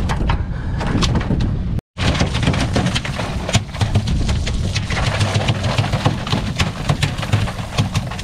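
Water from a deck washdown hose splashing onto the tuna and the cockpit floor, over a steady low rumble of the boat's engine. The sound drops out completely for an instant about two seconds in.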